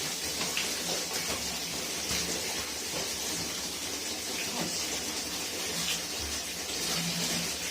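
Steady hiss of water, running or falling without a break.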